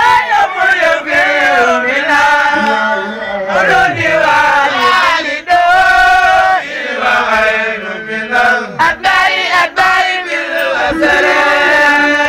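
A man chanting a devotional song into a microphone, in long held notes that waver and slide between pitches, with short breaks between phrases.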